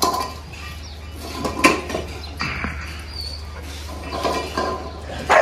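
Dogs eating from stainless steel bowls: the metal bowls clink and knock against the tiled floor, a few sharp clinks.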